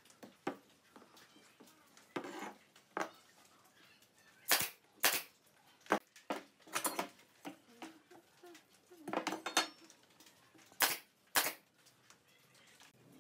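Sharp shots of a pneumatic nail gun driving nails into a pine stool frame, mostly in pairs about half a second apart, with lighter knocks of wood and a metal square being handled on the workbench between them.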